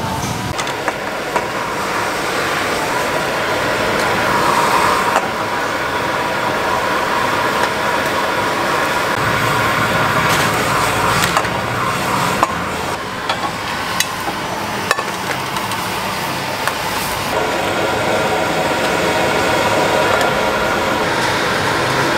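Food frying and bubbling in a wok over a roaring gas burner, with scattered sharp clanks of a metal spatula against the wok.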